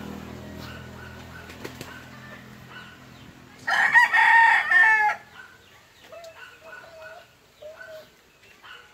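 A rooster crows once, loud, for about a second and a half near the middle. Faint short bird chirps repeat before and after it.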